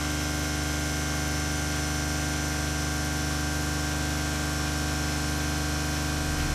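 CNC milling machine cutting metal with an indexable-insert end mill: a steady hum and hiss with several constant tones that do not change through the cut.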